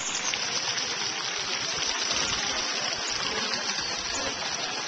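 Water splashing steadily: a fountain jet falling into a swimming pool.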